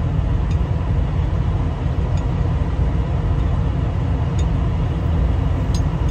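Steady low mechanical rumble, like running machinery or an idling engine in the shop, with a few faint metallic clicks spread through it.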